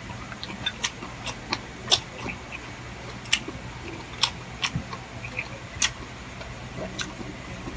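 Close-miked eating sounds: irregular sharp wet clicks and smacks of chewing adobo chicken liver and gizzard, about a dozen spread unevenly through the stretch, over a steady low hum.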